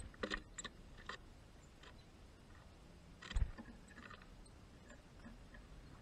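Faint clicks of a European greenfinch picking over and cracking sunflower seeds in a seed tray, a cluster in the first moments and another about a second in. A single louder thump about three and a half seconds in.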